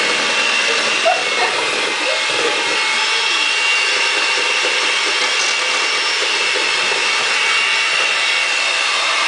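Electric mixer running steadily, beating eggs, with a steady high whine over its motor noise.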